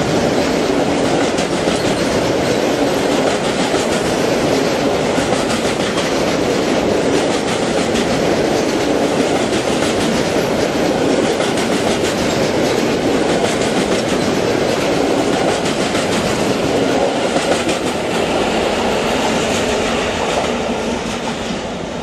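Freight train of covered wagons rolling past, its wheels clattering steadily over the rails. The sound fades over the last few seconds as the end of the train moves away.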